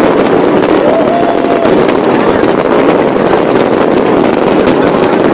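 Fireworks crackling and bursting over the steady noise of a large crowd, with a short steady whistle about a second in.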